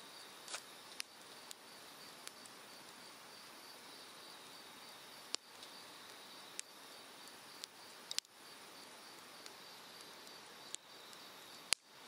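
Japanese cedar firewood burning in an open ground fire, crackling with scattered sharp pops and snaps, the loudest near the end, over the steady rush of a mountain stream. An insect chirps in an even pulse behind it.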